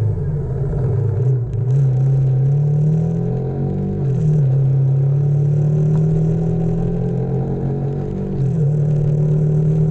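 Motorcycle engine running under way, its pitch rising over the first few seconds, dropping about four seconds in, then holding steady with a brief dip near the end, over a low rumble.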